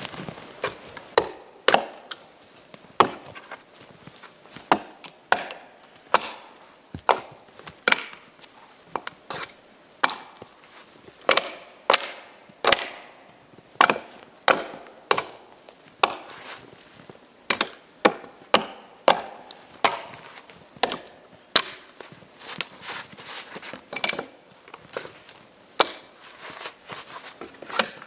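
Hatchet chopping into a fallen dead tree: a steady series of sharp wooden chops, roughly one to two a second.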